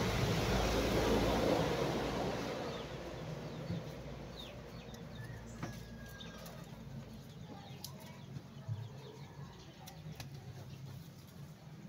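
A passing road vehicle's noise fading away over the first few seconds, then faint scattered bird chirps and chicken calls.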